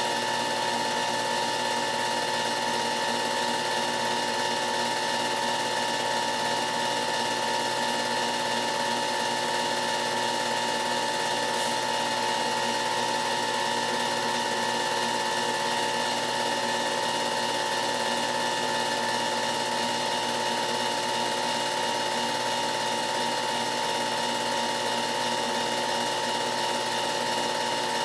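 Film projector running: a steady mechanical whir with a constant whining tone that never changes.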